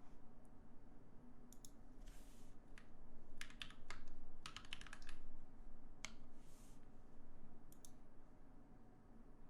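Typing on a custom mechanical keyboard in a sound test: irregular bursts of keystrokes, quick runs of clicks separated by short pauses.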